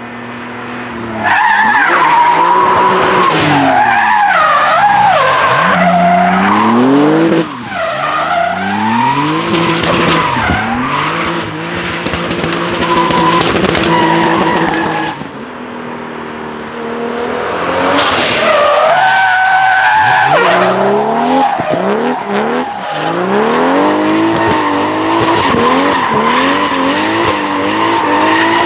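Drift cars sliding round the track: engines revving up and down again and again as the throttle is worked through the slides, with tyres squealing. The sound drops briefly about seven seconds in and again around fifteen seconds in.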